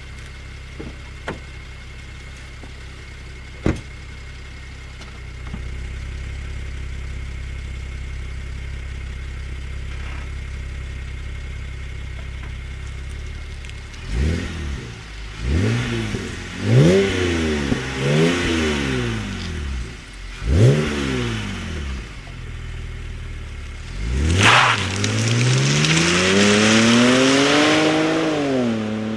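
BMW 325i's N53 straight-six running through a 330i rear silencer. It idles steadily, with a sharp click a few seconds in. From about halfway it is blipped in about five quick revs, then held up in one longer rev that climbs and falls back near the end.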